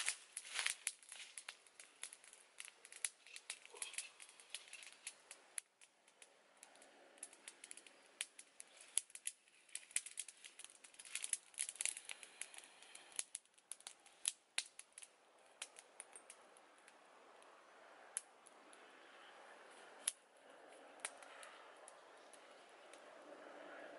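Small wood fire crackling, with sharp irregular snaps and pops that come thickly at first and thin out in the second half. Under them a soft steady hiss slowly grows louder.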